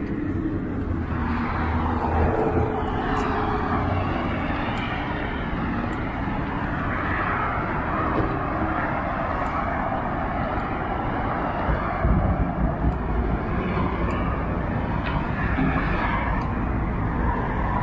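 Steady road-traffic noise from cars on a wide city street, tyres and engines blending into a continuous wash, with a deeper rumble from about twelve seconds in as a vehicle passes closer.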